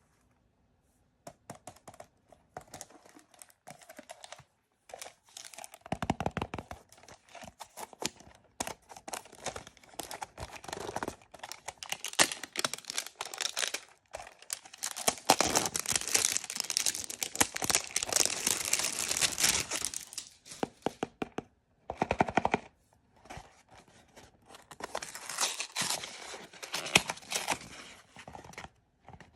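Blind-bag packaging being torn open and crinkled by hand: a dense crackle of tearing and crumpling wrapper, with short pauses, loudest in the middle stretch.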